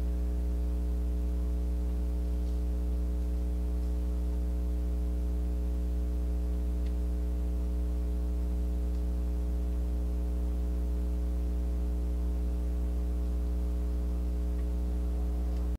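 Steady electrical mains hum: a low, unchanging tone with a ladder of buzzing overtones, with no other sound standing out.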